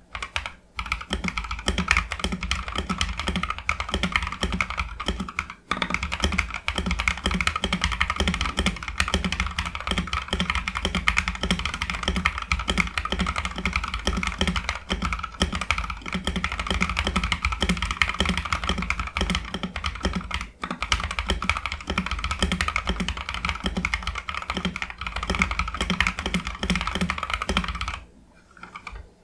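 Fast continuous typing on a mechanical keyboard with Akko Radiant Red linear switches and ASA-profile keycaps in a GH60 ABS plastic case, giving a dense run of thocky keystrokes. The typing breaks off briefly twice, about six seconds in and about twenty seconds in, and stops about a second before the end.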